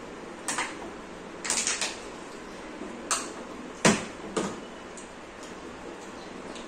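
A string of short, sharp knocks and clatters of hard objects at irregular spacing, several in the first half and the loudest about four seconds in.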